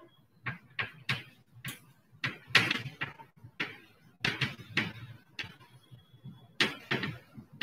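Chalk writing on a blackboard: an irregular run of short taps and scratches as the letters are written.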